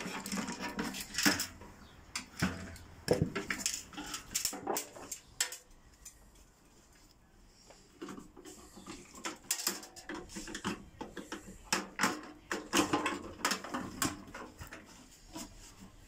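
Scattered metallic clinks, knocks and rattles as a microwave oven's sheet-metal chassis and internal parts are unscrewed and handled, with a quieter stretch near the middle.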